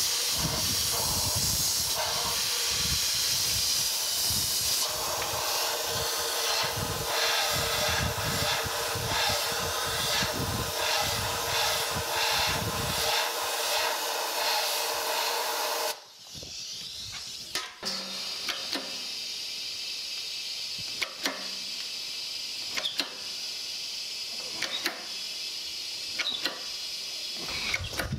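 Compressed air blasting from a blow gun down inside a heated cast iron valve sleeve: a loud steady hiss with a faint steady tone. The air cools the sleeve so it shrinks for pressing out. The blast cuts off suddenly about sixteen seconds in, leaving a quieter steady sound with scattered clicks.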